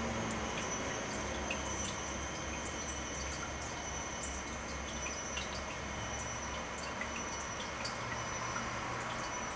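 Angora lop rabbit grooming itself, faint small wet licking clicks scattered over a steady background hiss.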